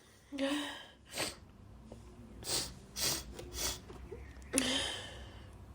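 A woman sniffing and breathing hard through an irritated nose between dust sneezes. There is a breathy huff at the start, three short sniffs about half a second apart in the middle, and another breathy huff near the end.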